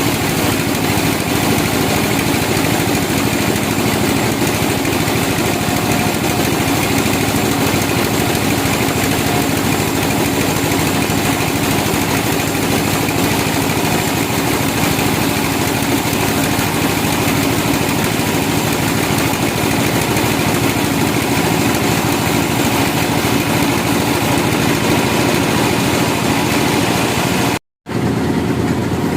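Sawmill machinery running steadily, an engine at a constant pitch. A moment of silence near the end, after which it resumes slightly changed.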